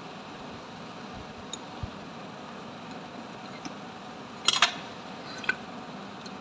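A steel ring spanner and the metal parts of a starter motor clinking as they are handled: a few faint ticks, then a quick cluster of sharp clinks about four and a half seconds in and one more a second later, over a steady background hiss.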